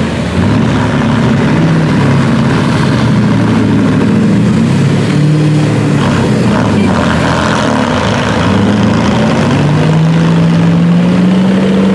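Off-road vehicle engines revving under load in deep mud, their pitch rising and falling, with one engine's note climbing and holding high near the end.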